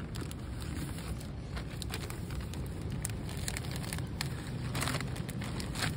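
Gallon-size plastic zip-top bag crinkling in the hands, with scattered light crackles over a low steady rumble.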